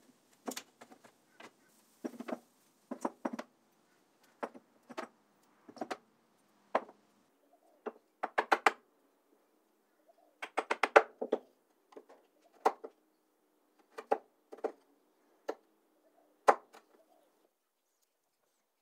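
Claw hammer tapping fine nails through thin plywood into a hardwood board: runs of quick light taps with pauses between, a few sharper blows among them.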